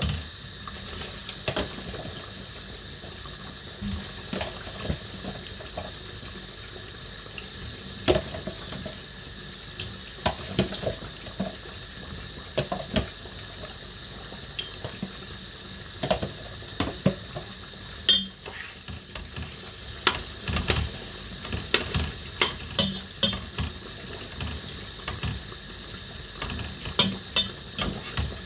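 Kitchen clatter: irregular knocks and clinks of dishes, a plastic container and utensils, over a steady hiss of water running at a kitchen sink.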